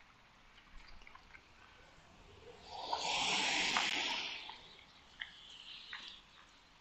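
Tyres of a passing vehicle hissing on a wet street, swelling up and fading away over about two seconds, with faint scattered ticks around it.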